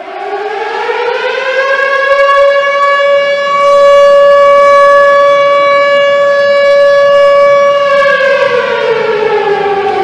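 Civil defense siren sounding: it starts abruptly and winds up over the first two seconds, holds one loud steady wail, then begins to wind down about eight seconds in, signalling an emergency alert.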